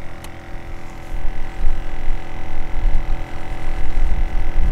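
Wind buffeting the microphone: an uneven low rumble, with a faint steady electrical hum running under it.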